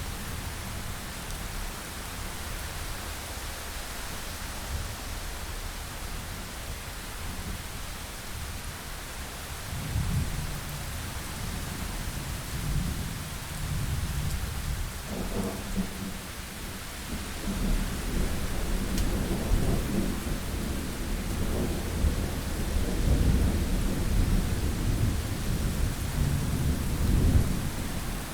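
Thunderstorm: steady rain hiss with rolling thunder. Low rumbles start about a third of the way in and grow heavier and more frequent through the second half, the loudest near the end.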